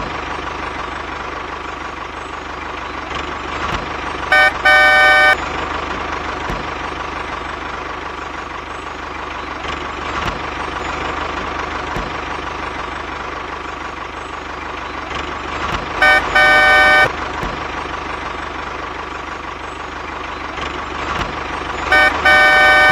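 A miniature toy tractor's motor runs steadily, and its horn sounds three times, each time as a double honk: about four seconds in, around sixteen seconds in, and near the end.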